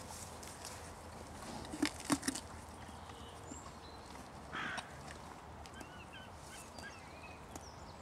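Faint small birds chirping in the background, with a few sharp clicks about two seconds in and a short scuffing noise near the middle.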